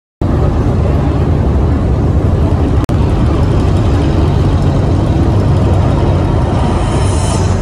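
A loud, steady rumbling noise that cuts in abruptly, with a momentary drop about three seconds in.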